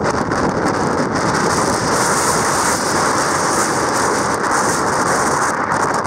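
Heavy storm surf breaking and churning along the shore in typhoon-strength wind, with wind buffeting the microphone. A loud, steady noise with no let-up.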